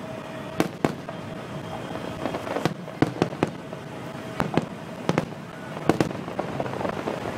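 Aerial fireworks shells bursting overhead: about a dozen sharp bangs at irregular intervals, several coming in quick pairs.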